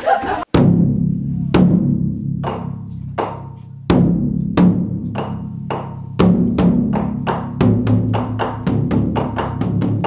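A large drum struck with sticks, each strike leaving a low ringing tail. The strikes come about one every three-quarters of a second at first, then quicken to two or three a second after about six seconds, as in a drum demonstration.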